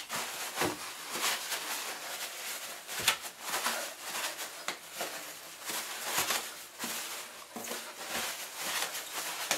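Loose toilet paper rustling and crumpling as hands rummage through a heap of it, with irregular louder crinkles.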